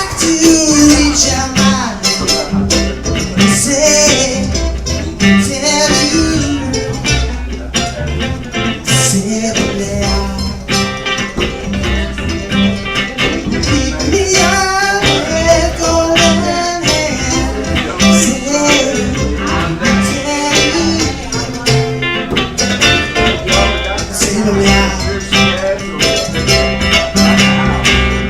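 Live band music: guitars with a steady rhythm and a melody line over it.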